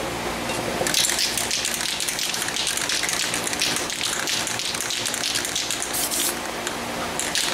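Aerosol spray paint can being worked: a run of quick rattling clicks mixed with short hisses.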